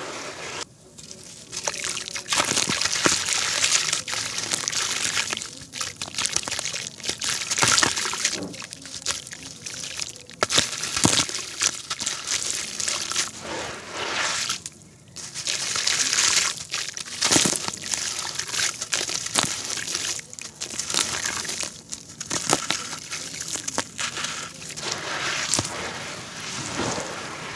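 A hand swishing and rubbing through watery concrete slurry in a plastic tub, gritty crumbled concrete scraping and water sloshing in repeated strokes with brief pauses.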